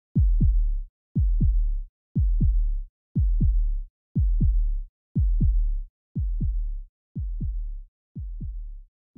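Electronic heartbeat sound effect: deep double thumps, each falling in pitch, about once a second, fading toward the end.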